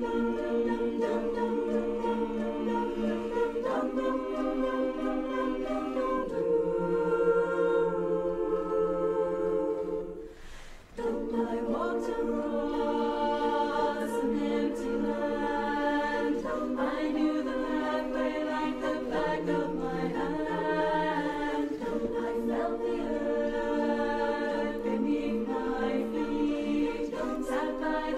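Women's barbershop chorus singing a cappella in close harmony, holding sustained chords. The singing breaks off briefly about ten seconds in, then resumes.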